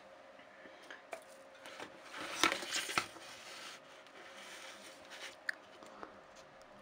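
Scattered small clicks and knocks of a laptop circuit board being handled and laid on its side on a workbench, with the loudest cluster of knocks about two and a half to three seconds in.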